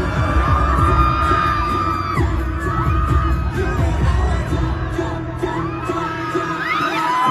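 Pop music with a sung melody over a heavy bass beat, played loud during a concert sound check. The bass falls away about five seconds in.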